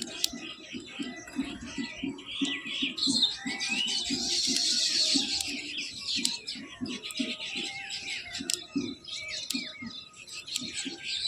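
Many birds chirping and chattering together in overlapping high calls, densest about halfway through, over a low, rapid pulsing.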